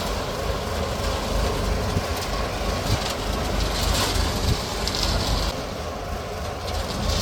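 Heavy diesel machinery running, most likely a self-loading concrete mixer: a steady low engine rumble with a hissing noise that swells about four seconds in and again near the end.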